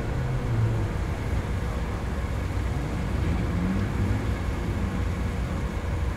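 Porsche 944's four-cylinder engine running at low speed as the car rolls slowly past, a steady low rumble with a slight rise in pitch about halfway through.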